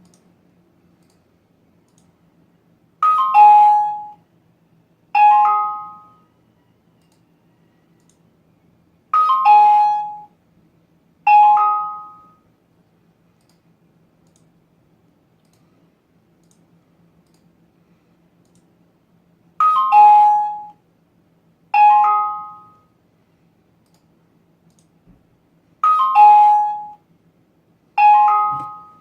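Electronic doorbell-like chime of three tones, sounding eight times in four pairs about two seconds apart, with long gaps between the pairs. A faint steady low hum runs underneath.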